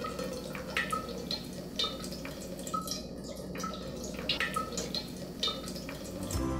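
Water dripping: about a dozen separate plinking drops at irregular intervals, each a short click with a brief ringing tone.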